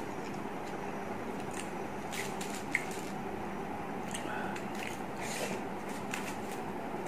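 Eating rice by hand from an opened paper nasi lemak wrapper: scattered soft crinkles of the wrapper and squishes of the rice, over a steady background hum.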